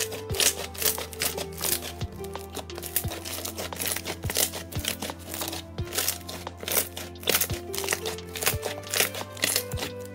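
Hands squeezing and pressing a large mass of slime, making many small, irregular clicks and pops, over background music with a soft beat about once a second.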